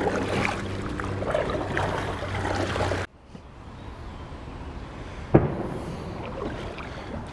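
Kayak paddling: the paddle blades dip and splash and water drips off them, over a steady low hum in the first three seconds. The sound drops abruptly about three seconds in, and there is one sharp knock about five seconds in.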